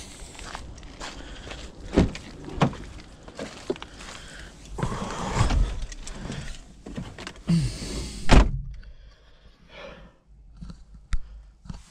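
Getting into a car: knocks and rustling of handling, then a car door shuts with a heavy thunk about eight seconds in. After that the sound is quieter and duller, as it is inside the closed car.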